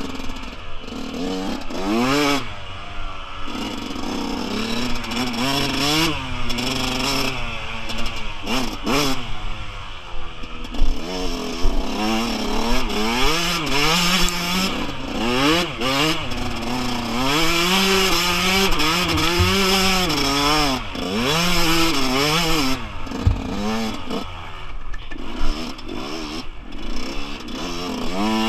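Yamaha YZ125 two-stroke single-cylinder engine being ridden hard, revving up and dropping back again and again as the rider accelerates, shifts and brakes round the track, over a low rumble of wind and ground noise.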